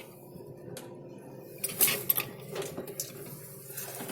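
A few scattered plastic clicks and knocks of an electrical plug being handled and pushed into a wall socket.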